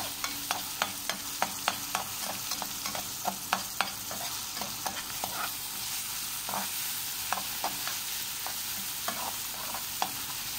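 Onion, garlic and tomato sizzling in oil in an aluminium frying pan while a metal slotted spoon stirs them, scraping and clinking against the pan. The clinks come thick and fast for the first few seconds, then more sparsely over the steady sizzle.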